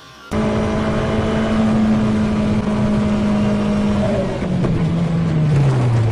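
Onboard engine note of an open-wheel racing car driving in heavy rain: a steady high engine note that starts abruptly, then drops in pitch over about two seconds near the end as the car slows.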